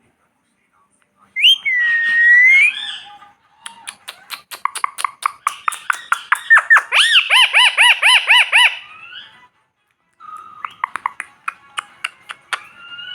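A parrot whistling and clicking. A single curving whistle comes about a second and a half in, then a long run of rapid clicks with quick rising-and-falling whistles repeated about four times a second, and near the end more clicks with a held whistle.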